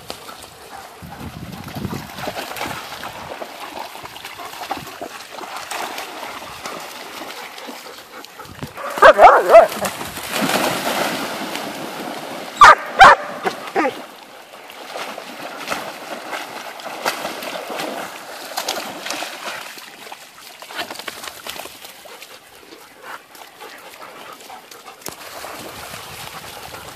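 Dogs barking and yipping around a pond, with water splashing as they swim and run through the shallows. Two bursts of loud barking stand out, about a third of the way in and again near the middle.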